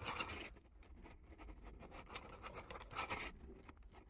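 Wire being twisted and coiled by hand around a glass test tube: faint scratching and rubbing of the wire with small clicks, in two spells, at the start and again about two seconds in.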